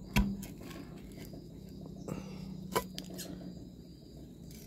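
A flat metal blade prying the stuck lid off a metal paint tin: a few sharp metallic clicks and scrapes as the lid works loose, the first and loudest about a fifth of a second in. A faint steady low hum runs underneath.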